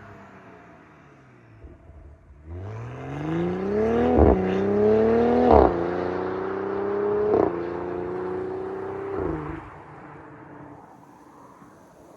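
BMW X3 M40i's turbocharged inline-six accelerating hard through the gears, its engine note climbing and dropping at each upshift. Each shift comes with a sharp crack from the exhaust, four in all, before the sound fades away. A faint, falling engine note comes first.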